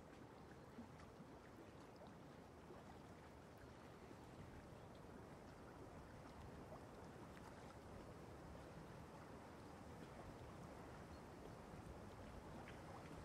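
Faint steady scraping and swishing of a metal palette knife spreading thick acrylic paint across a canvas, with small scattered ticks as the blade drags over the weave.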